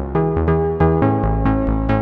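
Roland System-1 synthesizer playing a sequenced pattern: a fast run of short, plucky notes, about five a second, over a bass line that changes pitch every half second or so.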